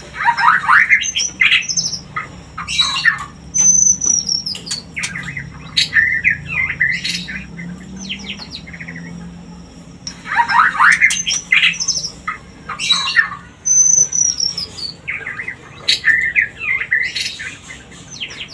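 White-rumped shama (murai batu) singing a breeding-season song of varied whistled phrases, quick chattering runs, sharp clicks and a high falling whistle. The same sequence of phrases repeats about ten seconds later, as in a looped recording.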